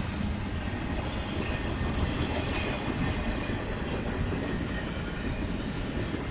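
A train running past close by, a steady, unbroken noise of rail cars and wheels on the track.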